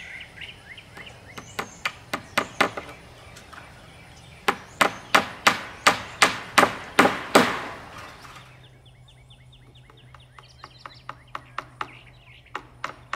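Hammer blows on a wooden post-and-rail frame while fastening welded wire: a short run of about four strikes, then a louder run of about nine at roughly three a second, then lighter taps near the end.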